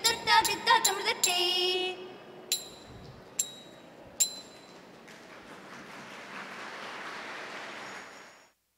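Women's voices singing the close of a Margam Kali song, with sharp metallic ringing strikes in time and a final held note about two seconds in. Three more single ringing strikes follow, then audience applause swells from about five seconds in and cuts off suddenly near the end.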